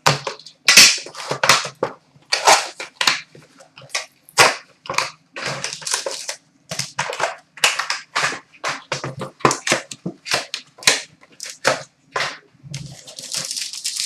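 A sealed hockey card box and its packs being torn open by hand: a quick run of sharp rips, snaps and crackles of cardboard and wrapper, turning into a longer crinkling near the end.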